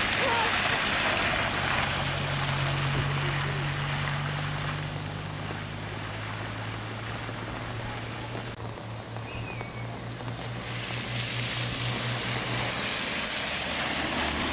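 A BMW M6's V10 engine pulling away at low revs with a steady low hum, its tyres hissing through standing water on the wet road. Near the end a second car's tyres swish past through the spray.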